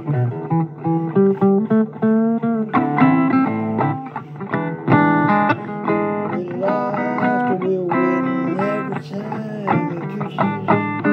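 Blues guitar music playing, plucked notes over a low bass line, with several notes bent up and down in pitch.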